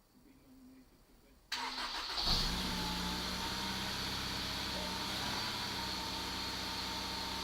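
Freshly rebuilt engine's first start: the starter cranks about a second and a half in, the engine catches within a second with a brief rev, then settles into a steady idle.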